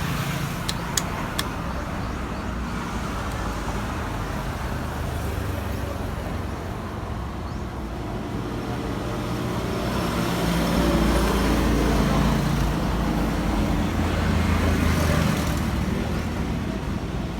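Motor vehicle and road traffic noise, a low steady rumble that swells louder about ten seconds in, with a few light clicks about a second in.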